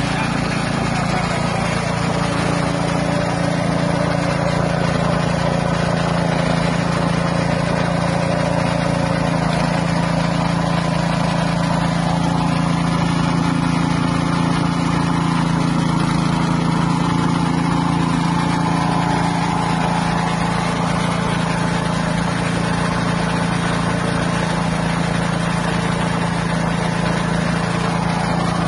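Small engine running steadily under load, driving a floating fish-feed pellet extruder as it turns out pellets, with an even low hum.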